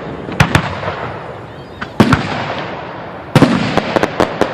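Aerial fireworks shells bursting: two sharp bangs about half a second in and another at two seconds, each trailing off in an echoing rumble, then a rapid volley of cracks and bangs from about three and a half seconds on.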